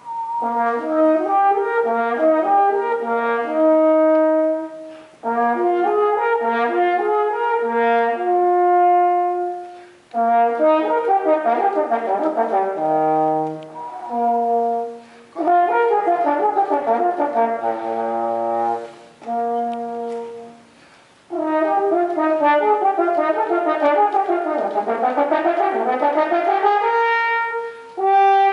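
French horn played solo and unaccompanied, in phrases of notes with short pauses between them, including fast runs; near the end a quick run sweeps down and back up.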